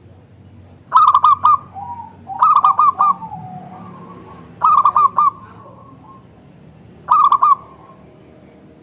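Zebra dove (perkutut) singing: four bursts of its rapid, staccato cooing notes, each a quick run of about four notes with softer, lower notes trailing after.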